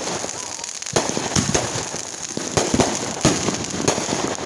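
Fireworks going off: a quick string of sharp bangs, several close together at times, over continuous crackling.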